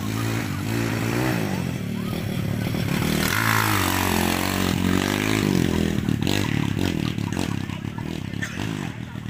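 Dirt bike engine revving up and down as it rides past, loudest around the middle and then fading.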